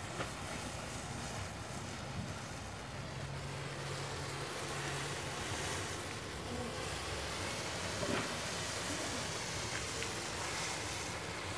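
A matchstick model burning: the steady rush of the flames, broken by a few sharp crackles.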